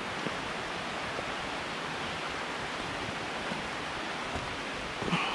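Steady rushing of a small rocky creek's running water, with a few faint footstep ticks and a short louder scuff near the end.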